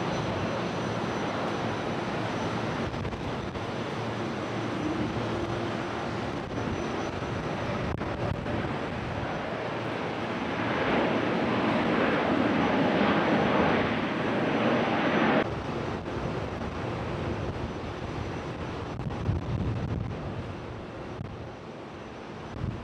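Jet engines of an Airbus A320neo airliner during its landing roll and slow-down, a steady rumble and hiss with wind noise on the microphone. The sound swells louder for about five seconds in the middle, then cuts off suddenly to a lower level and fades further near the end.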